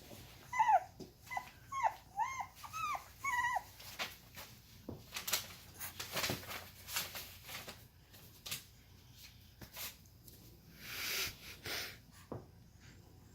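Boxer puppies whimpering: a quick string of about six short, high, arching whines in the first few seconds, followed by rustling and scuffling noises.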